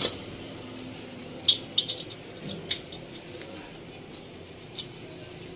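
A few light metallic clinks, scattered and irregular, as the barrel nuts are handled and set onto the cylinder studs of a Yamaha RX135 engine.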